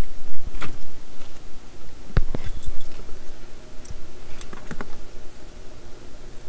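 Metallic clicks and jingles of an Abus 55/40 padlock, its key and lock-pick tools being handled, a scattering of separate clinks rather than a steady sound.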